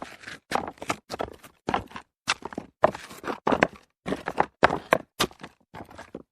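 Footsteps walking on stones, each step a short crunching clatter, about two a second.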